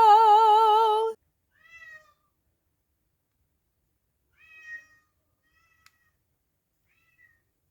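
A long, wavering vocal note that stops about a second in, then a few short, faint cat meows spaced a few seconds apart.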